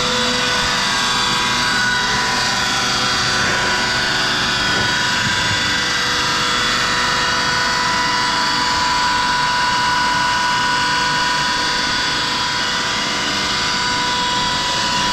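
Eaton 20 hp air-cooled rotary screw air compressor running loaded just after start-up, building pressure toward its cut-out. A steady machine sound with a constant high whine.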